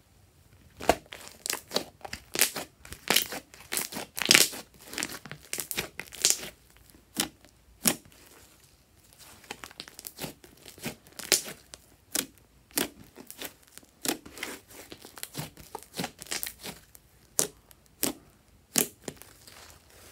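Purple fluffy slime being kneaded, folded and stretched by hand, giving a run of irregular sharp crackles and pops, with a brief lull a little before halfway.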